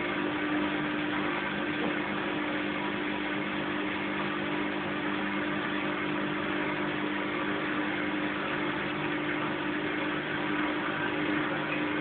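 Fagor front-loading washing machine on its spin cycle: the motor and drum run at a steady speed, giving an even hum over a rushing noise.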